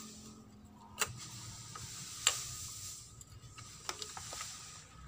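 A few light metallic clicks and taps as a new aluminium cylinder block on a Yamaha Vega ZR engine is worked down over the piston and its rings. The loudest click comes just past two seconds in.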